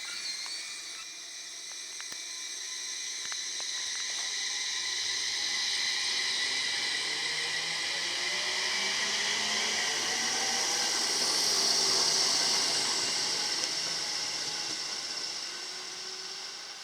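A train passing a level crossing: it grows louder for about ten seconds, peaks, then fades, with high steady tones throughout and lower tones that slide in pitch as it goes by.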